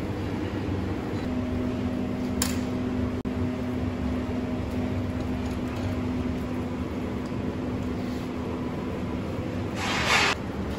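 Steady mechanical hum of commercial kitchen machinery, like a fan or refrigeration unit, with a low drone. A single sharp click comes about two and a half seconds in, and a short louder burst of noise near the end.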